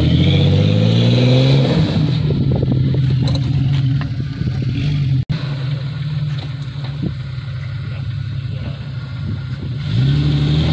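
2001 Jeep Cherokee XJ's engine revving as it crawls over rock ledges. Its pitch rises over the first second or two, then it runs steadily under load. The sound drops out for an instant about five seconds in.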